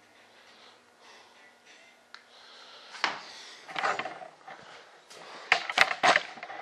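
Handling noises on a workbench: quiet at first, then rustling and sharp clicks and knocks from about three seconds in, with the loudest cluster of knocks near the end.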